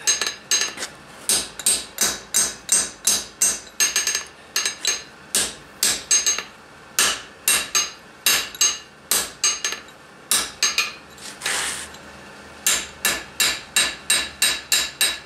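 Hand hammer striking a red-hot square steel bar on an anvil in a quick run of light blows, about three a second, each with a short metallic ring and a couple of brief pauses. The smith is lightly upsetting a thick spot on the bar while shaping it for a forge-welded square corner.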